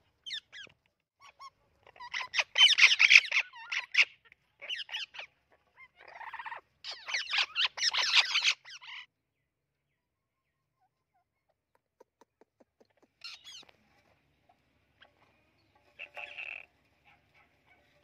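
Orange-winged Amazon parrot screaming: two loud bouts of harsh, broken calls in the first half, then a few short, fainter calls.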